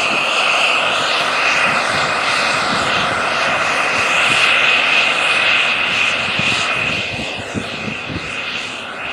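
John Deere 9R-series four-wheel-drive tractor's diesel engine pulling a chisel plow through the soil under heavy load, a steady drone with a high whine riding over it. It fades slightly over the last couple of seconds as the tractor draws away.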